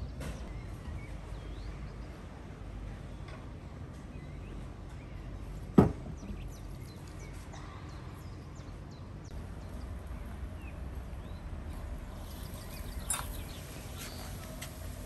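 Outdoor ambience: birds chirping over a low steady rumble. One sharp, loud clank about six seconds in, and a smaller one near the end, as the hooked trout is handled over the steel tray and tandoor.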